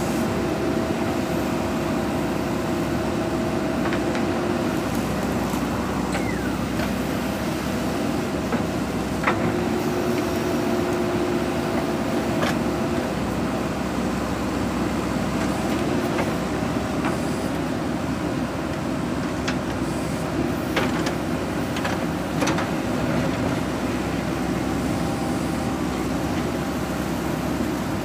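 JCB backhoe loader's diesel engine running steadily under load while the backhoe arm digs, with a tone that comes and goes over the engine drone. A few sharp knocks, one about nine seconds in and several more past the middle.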